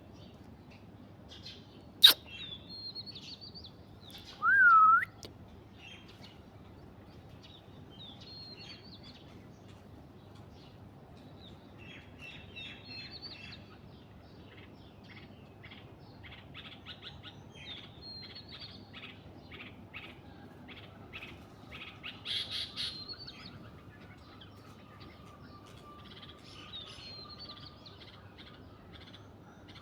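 Birds chirping in short high phrases, with one sharp, sudden call about two seconds in and a loud whistled call that dips and rises at about four and a half seconds. Runs of rapid chirps follow in the middle.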